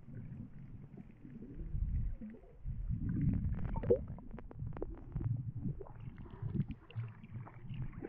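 Water sloshing and rumbling against a waterproof camera held underwater and then at the sea surface, with scattered small clicks and bubbling; it swells around the middle as the camera comes up among the waves.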